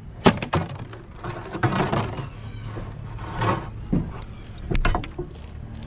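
An empty clear plastic bottle crackling and scraping on sand as a thin rod is jabbed into it and it is lifted off the ground, with a few sharp clicks of the rod against the plastic.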